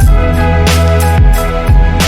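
Pop music track with a steady drum beat, deep bass and held melodic notes.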